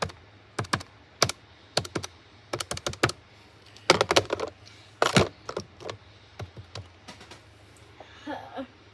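Buttons on a VTech landline phone's keypad being pressed in a run of quick, irregular clicks.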